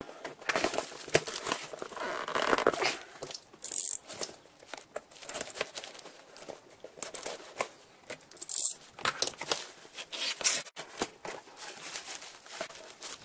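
Cardboard shipping box being opened by hand: packing tape ripped off, flaps scraping and bending in irregular rustling bursts, then bubble wrap crinkling inside.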